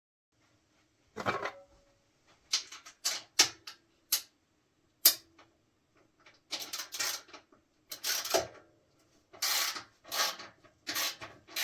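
Hand tools working metal fasteners on a motorcycle: sharp clicks of tool on metal starting about a second in, then a run of short scraping strokes as a screw is loosened.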